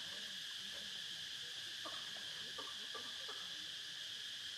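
A steady, high-pitched chorus of insects keeps up throughout, with a few faint short clicks between about two and three and a half seconds in.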